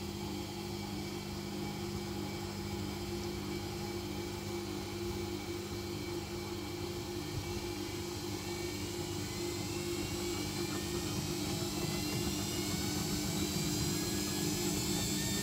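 Old Samsung front-loading washing machine spinning up into its intermediate spin: a steady mechanical whir with a motor whine rising in pitch and getting gradually louder as the drum speeds up.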